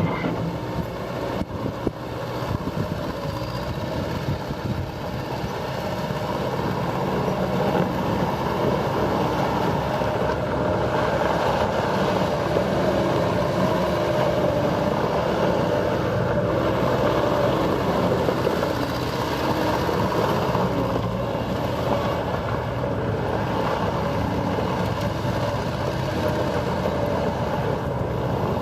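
2002 Bobcat S185 skid-steer loader's diesel engine running, growing louder over the first several seconds and then holding steady.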